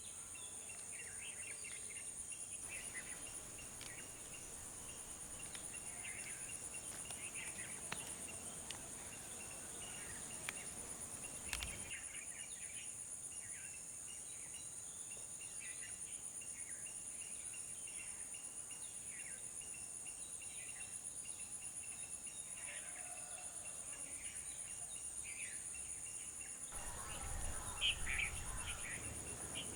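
Insects trilling in a steady, high-pitched continuous chorus, with scattered short bird chirps over it. The sound gets louder and noisier near the end, with more chirps.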